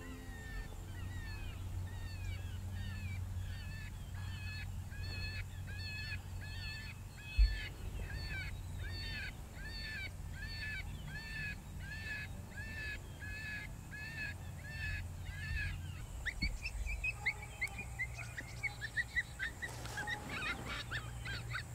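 High squealing bird-like calls repeated evenly about twice a second, changing near the end to a quicker run of rising calls. A single thump about seven seconds in is the loudest moment.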